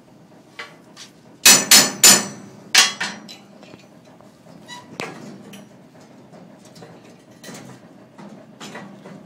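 Sharp metal-on-steel knocks: three loud strikes in quick succession about a second and a half in, two more a second later, then lighter scattered taps. A cut part is being knocked loose on the plasma table's steel slats, to which the plasma cut can weld it.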